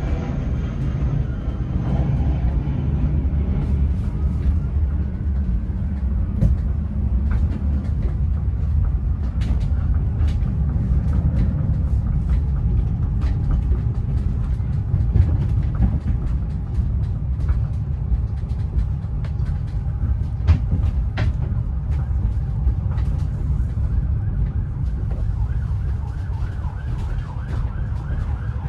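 Inside a driverless electric pod running on rubber tyres along a concrete guideway: a steady low rumble with scattered light clicks and rattles.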